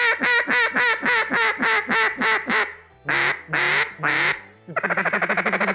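Double-reed mallard duck call (Slayer Calls Drake Slayer) blown by hand, run to test it after cleaning and reseating its reeds: a fast string of quacks, about six a second, then after a short pause three longer quacks, then a rapid rolling chuckle starting near the end.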